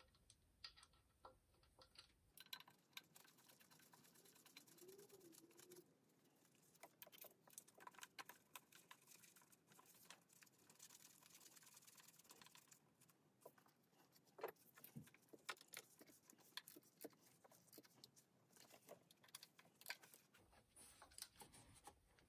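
Near silence broken by faint, irregular metallic clicks and taps: the two 12 mm mounting bolts and tools being handled while a replacement power steering pump is fitted.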